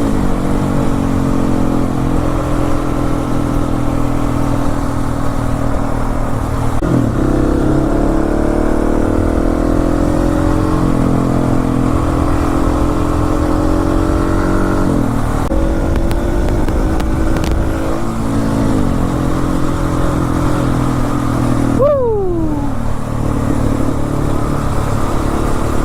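Husqvarna 701 Supermoto's single-cylinder engine running under way, its pitch climbing through the revs and dropping at several gear changes. About 22 seconds in the pitch falls sharply as the bike slows.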